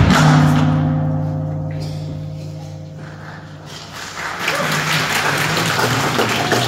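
Singkil dance music stops on a final beat, leaving a held tone that fades over about three seconds. Audience applause rises about four seconds in.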